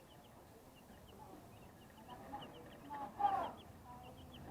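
Twelve-day-old broiler chicks peeping, many short high chirps in quick succession, with one louder call about three seconds in.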